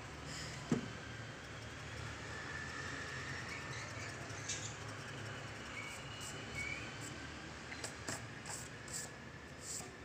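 Graphite pencil scratching on paper in short hatching strokes, with a single knock under a second in, over a steady low hum.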